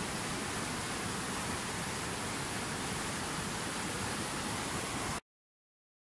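Fast mountain river rushing over rocks, a steady, even wash of water noise that cuts off abruptly about five seconds in, leaving silence.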